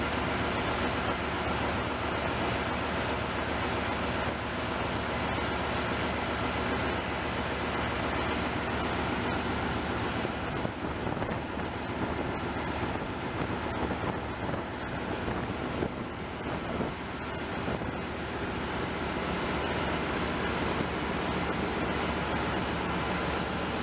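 Ship's diesel generator running on a test run, a steady, even engine-room drone.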